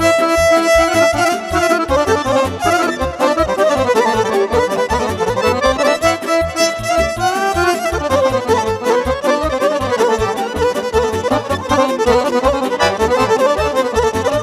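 Instrumental break of Romanian party music: a Roland digital accordion plays a fast, ornamented melody over a steady backing beat from the keyboard.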